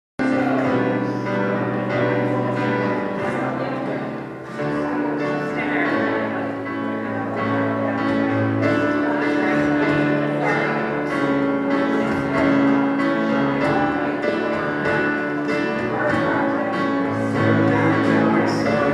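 Live worship band playing a song: keyboard, acoustic guitar and an electronic drum kit keeping a steady beat under sustained chords.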